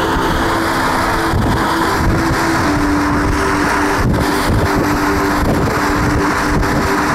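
Car driving along a road: steady tyre and wind noise with a constant engine hum.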